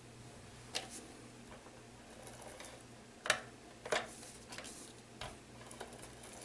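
Cardstock being handled and set down on a work mat: a few scattered light taps and clicks, the sharpest a little past three seconds in, over a faint steady low hum.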